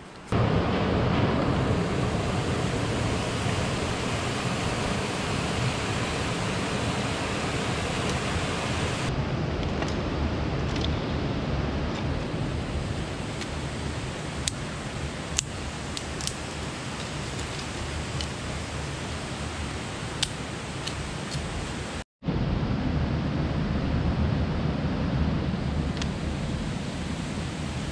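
Steady rush of a flowing river or stream, with a few light clicks of twigs being laid in a fire ring.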